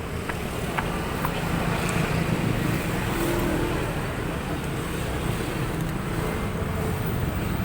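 Steady road traffic on a busy city road: engine and tyre noise from passing vehicles, swelling a little about two seconds in as traffic goes by.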